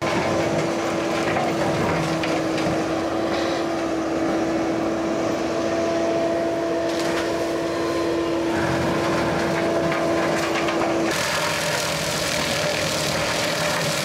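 A Bobcat T770 compact track loader runs under load while its high-flow hydraulic direct-drive brush mower spins, cutting and mulching brush and saplings. A steady tone runs through most of it, and the sound turns abruptly brighter and harsher about eleven seconds in.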